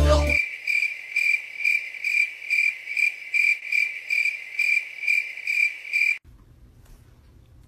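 Insect chirping, a high, even chirp repeating about two and a half times a second, that cuts off suddenly near the end.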